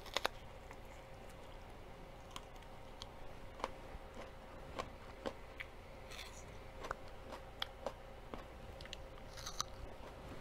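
A person chewing and biting food close to the microphone: faint, scattered crisp crunches and mouth clicks, with two sharper ones right at the start.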